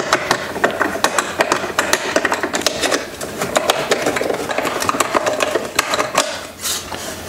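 A hand screwdriver backing small screws out of the metal back of an old car gauge cluster: a long, fast run of small clicks and metal scraping.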